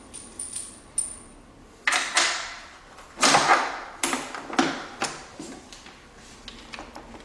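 Knocks and clicks of telescope truss parts being handled and fitted together: carbon truss tube ends seating into the secondary cage's metal fittings. A run of sharp knocks and clatters, loudest about three seconds in, becoming sparse and faint after about five seconds.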